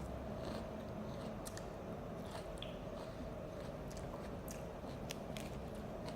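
A person chewing raw salad greens and vegetables: scattered small crunches and clicks of leaves breaking between the teeth, over a faint steady hum.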